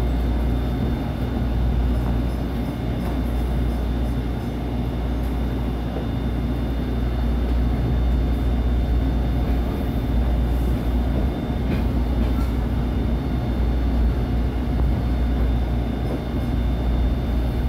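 Interior sound of a SEPTA Kawasaki light-rail trolley car pulling away from a stop and rolling along street track: a steady low rumble from the car's motors and running gear, with faint constant hum tones.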